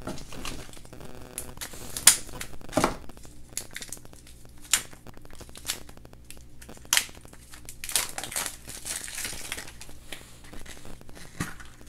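Crinkling and tearing of a plastic wrapper as a surprise-egg toy package is opened by hand, with scattered sharp clicks and snaps.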